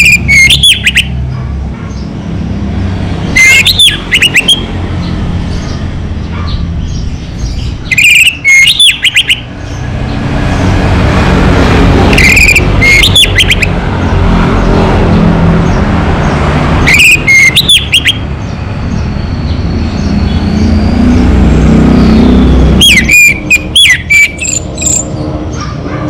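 Caged orange-headed thrush (anis merah) singing loud, short phrases of rapid high whistled notes, six phrases about every four to five seconds. A steady low rumble runs underneath.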